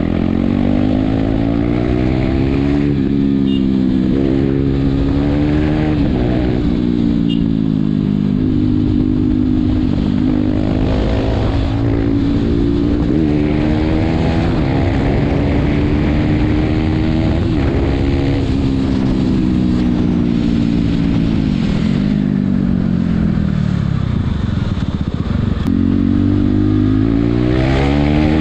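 KTM RC 390's single-cylinder engine being ridden hard, its pitch climbing under acceleration and dropping back at each gear change many times over, with a longer fall in pitch about two-thirds of the way through as it slows before pulling again.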